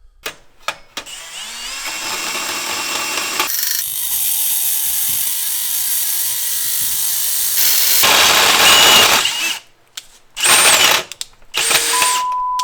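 Power tool cutting into 1 3/4 in steel tube, running loud in long stretches and then in two short bursts. A steady beep tone sounds near the end.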